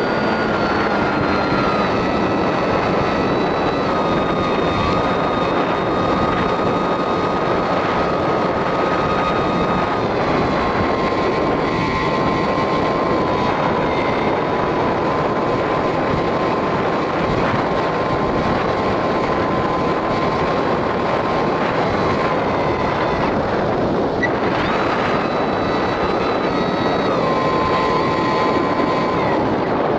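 Skywalker X-8 flying wing's pusher motor and propeller whining over heavy wind rush on the onboard microphone. The whine steps down in pitch several times as the throttle is eased, rises briefly about 25 seconds in, then drops again.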